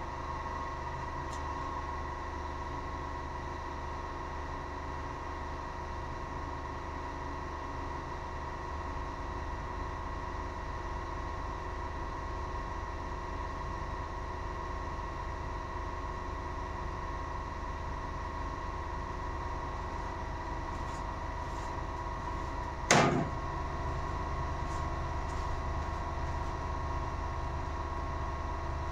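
Centrifugal casting machine for soft plastic lures running, with a steady hum and an even whine. A single sharp knock about two-thirds of the way through.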